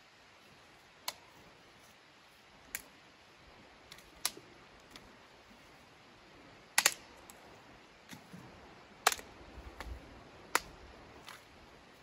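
Dry sticks being snapped by hand: a series of sharp cracks a second or two apart, the loudest a double crack about seven seconds in.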